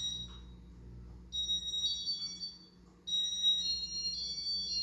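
Casablanca IntelliTouch ceiling fan's electronic beeper sounding runs of high tones at a few stepped pitches: a short run at the start, another about a second and a half in, and a longer one from about three seconds in.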